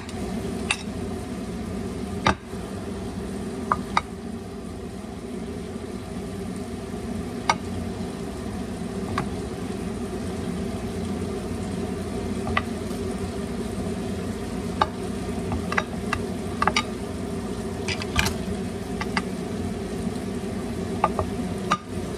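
A knife cutting cooked beef ribs off the bone in a glass baking dish: scattered sharp clicks as the blade knocks on the glass and the bones, about a dozen of them at irregular intervals. Under them runs a steady mechanical hum.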